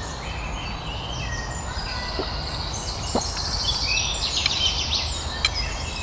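Several songbirds singing, with repeated trills and chirps, over a steady low background rumble.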